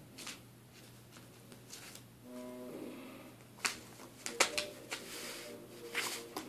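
Sheets of paper rustling and crinkling as a cat pounces on them and on a rubber slide sandal, with a few sharp taps and knocks, the loudest about four seconds in.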